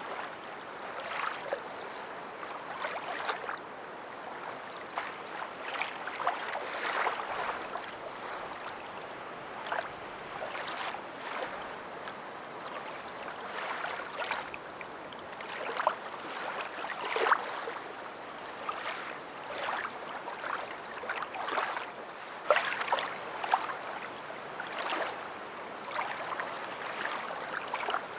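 Water lapping and splashing in small, irregular slaps over a steady wash, like water moving against a hull or shore.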